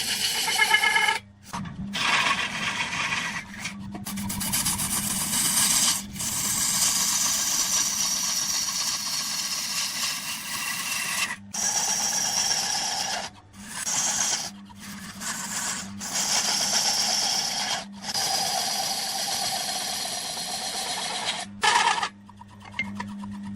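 Wood spinning on a lathe being worked with a turning tool or abrasive: a steady scraping hiss over a low motor hum. It is broken off abruptly about a dozen times where short clips are cut together.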